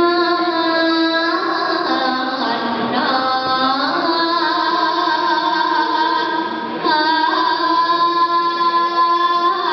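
A young girl singing a Javanese sinden (gamelan female vocalist) line into a handheld microphone: long held notes with slow bends and ornaments, a new phrase starting about seven seconds in, over a steady lower accompanying tone.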